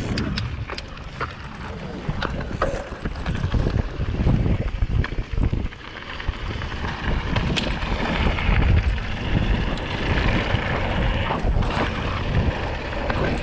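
Wind rushing over the microphone and knobby tyres rumbling on a dirt trail as a mountain bike rolls downhill, with scattered clicks and rattles from the bike over bumps.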